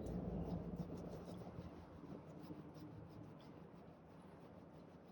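Faint scratchy rubbing with many small clicks, close to the microphone, fading gradually.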